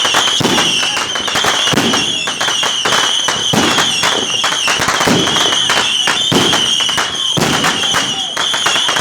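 Fireworks crackling continuously in dense rapid pops, with a high wavering whistle running through and deeper bangs about every second and a half.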